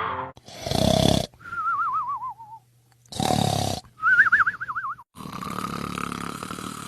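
Cartoon-style snoring, twice over: a rasping snore on the in-breath, then a wobbling whistle on the out-breath, the first whistle falling in pitch and the second holding high. A longer, steadier snore follows near the end.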